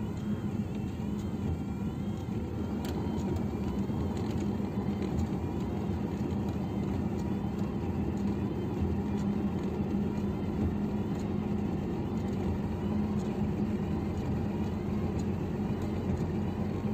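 Scania truck's engine and road noise heard inside the cab while driving: a steady drone with a constant low hum.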